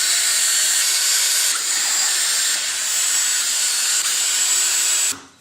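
A high-speed power tool running steadily for about five seconds, with a thin high whine over a hiss, then cutting off suddenly.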